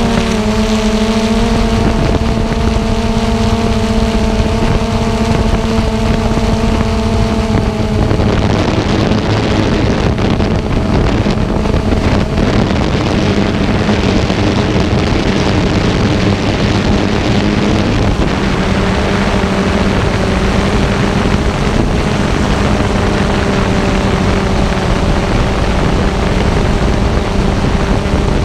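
Xiro Xplorer G quadcopter's motors and propellers buzzing steadily as picked up by its onboard camera, with wind noise on the microphone. About eight seconds in the buzz drops slightly in pitch and turns noisier as the motor speed changes.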